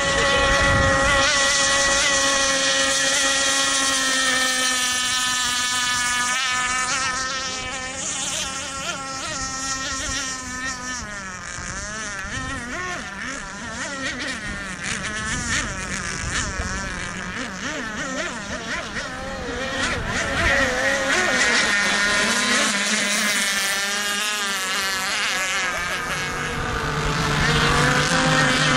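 Radio-controlled model race boats running at speed, their high-pitched engine whine wavering and shifting in pitch as the boats pass and turn. The whine is loudest at the start and again in the last third, fading somewhat in the middle.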